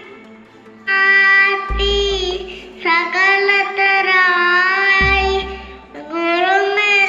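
A young boy singing into a microphone in held, wavering phrases over a steady drone. A deep drum stroke lands about every three seconds. The singing starts about a second in.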